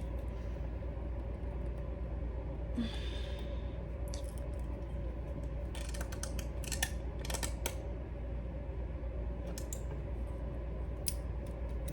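Scissors snipping and clicking at a stretchy wig cap's ear tab without cutting through; the blades are damaged. The snips are scattered and bunch up a little past the middle, over a steady low hum.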